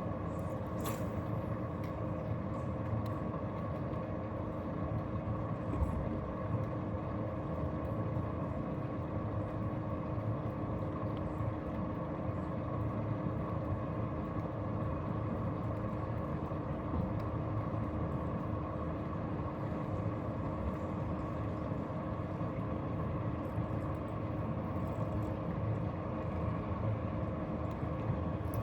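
Boat motor running steadily, a constant hum with several held tones over a low rumble.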